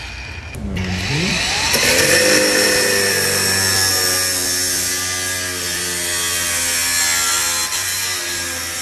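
Cordless brushless angle grinder spinning up with a rising whine about a second in, then cutting into a steel bar with a cut-off disc: a steady motor whine under the harsh grinding hiss of the disc in the metal.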